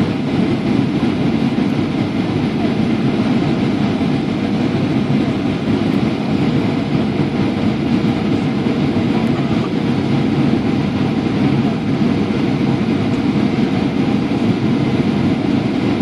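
Steady cabin noise inside a Boeing 737-800 on approach: the rush of air along the fuselage and the drone of its CFM56 turbofan engines, an even low rumble that does not change.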